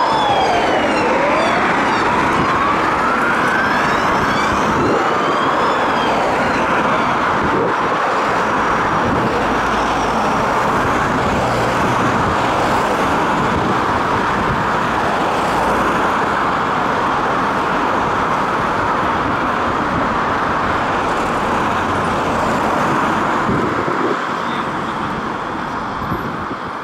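UK police car sirens sounding over traffic noise. In the first few seconds a wail rises and falls slowly, then the siren sound blurs into a dense, continuous wash.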